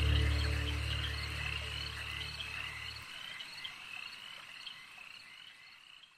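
A deep held music drone fades and stops about three seconds in. Under it, a steady rhythm of short high chirping calls, like night-time animal calls at about two a second, fades gradually away to nothing.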